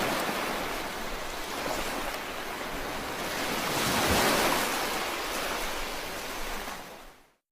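Sea waves washing in, a continuous surf rush that swells to its loudest about four seconds in, then cuts off just before the end.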